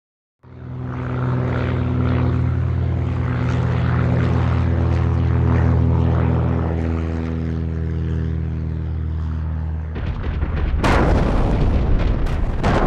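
A loud, steady low drone made of several held tones, starting abruptly out of silence. About ten seconds in it turns into a rougher rumble, with two loud bangs about a second apart near the end.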